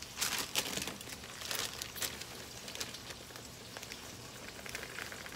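Bacon frying in a pot: a steady sizzle with crackles and pops, the crackles louder and thicker in the first two seconds.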